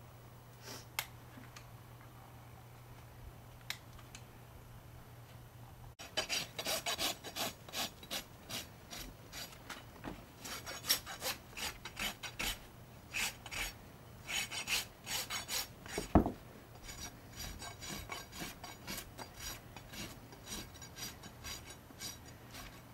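Hoof rasp filing a Fjord horse's hoof in repeated scraping strokes, about one to two a second, starting about six seconds in after a stretch with only a couple of small clicks. One heavier knock partway through the rasping.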